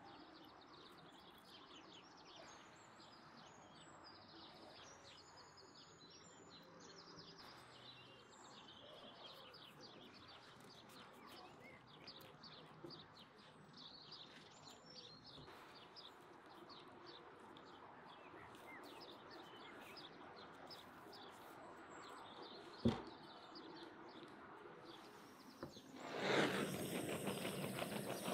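Small birds chirping faintly over quiet outdoor background noise, with one sharp click a little before the end. Near the end a loud steady hiss starts, like a gas blowtorch scorching the tortilla wraps.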